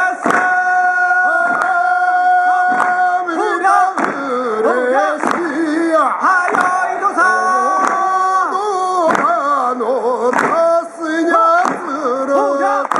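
Japanese folk song performed live: a singer holding long notes that bend and waver in pitch, over a sharp beat about every 1.3 seconds.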